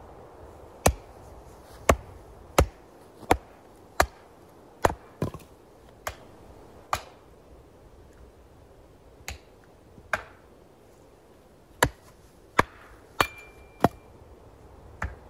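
Hatchet splitting firewood on a wooden chopping stump: a series of sharp chops, about one every three-quarters of a second, with a pause of a couple of seconds midway before the chopping resumes.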